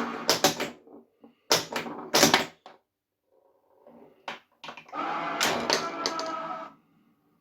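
A 3D-printed replica of a Williams Space Shuttle pinball machine in play: sharp clusters of mechanical clacks from its flippers and the ball striking parts of the playfield in the first couple of seconds. This is followed by a pitched electronic sound effect from the game lasting about two seconds in the second half.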